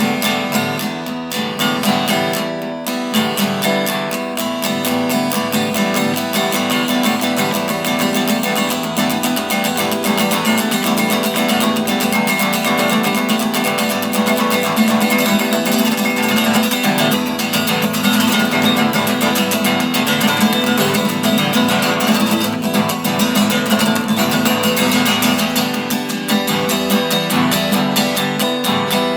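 Acoustic guitar played with fast, continuous strumming.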